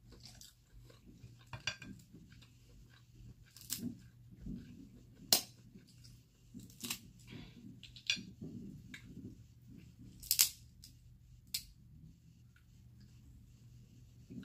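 Cooked Dungeness crab shell being snapped and picked apart by hand, giving sharp irregular clicks and cracks every second or two, the loudest about five seconds in. Soft chewing is heard between them.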